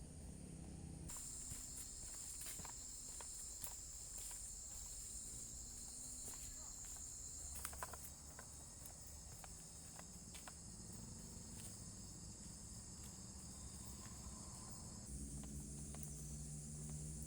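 Insects chirring steadily in a high, continuous band that comes in about a second in, with scattered small clicks and rustles.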